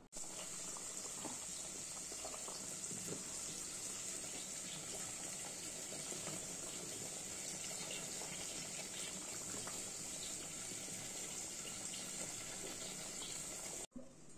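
Curry cooking in a pan on the stove: a steady hiss with scattered small pops and crackles, cut off abruptly near the end.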